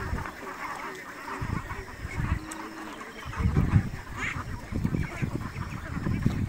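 A large flock of domestic ducks quacking and chattering together, the calls thinning out toward the end. Bursts of low rumble come and go, the loudest about three and a half seconds in.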